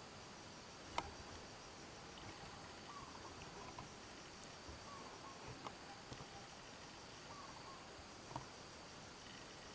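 Steady high-pitched drone of an insect chorus, with faint short chirps recurring every second or two. A sharp click sounds about a second in, with a couple of smaller clicks later.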